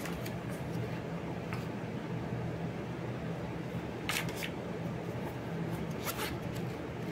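Paper and card handling: a few brief rustles and flicks as a printed insert card and a small paperback guidebook are handled, with a quick riffle of the booklet's pages about six seconds in. A steady low hum runs underneath.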